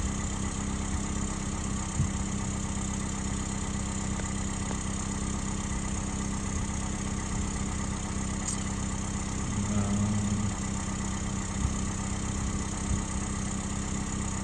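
A freshly rebuilt Toyota 1ZZ-FE 1.8-litre four-cylinder idling steadily, with the idle a little high. There is a single short knock about two seconds in.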